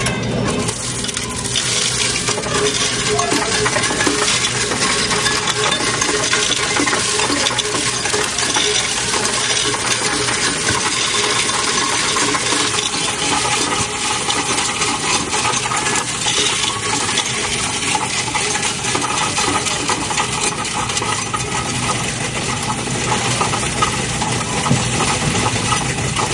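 Coinstar coin-counting kiosk taking in a tray of mixed US coins (quarters, dimes, nickels and pennies): a steady, dense stream of coins clattering as they are fed through and counted.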